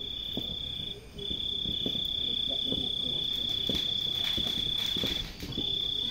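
A night insect trilling on one steady high note, breaking off briefly about a second in and again near the end, over the crackle and pops of a wood campfire.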